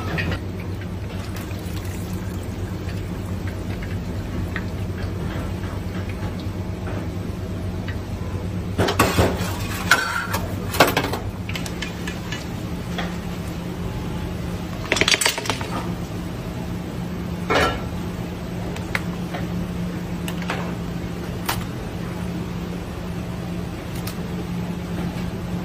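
Metal pans and utensils clinking and clattering a few times, over a steady low hum.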